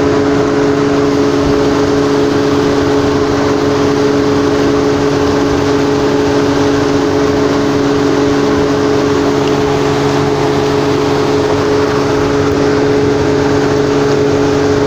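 Room air cooler running: a steady rush of air from its fan with a constant motor hum.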